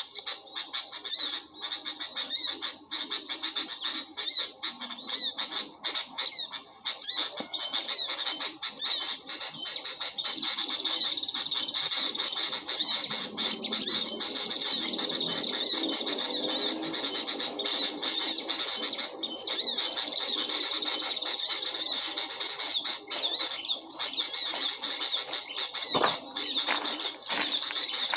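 Small birds chirping and twittering without pause, a dense high-pitched chorus of quick notes, with a single short knock near the end.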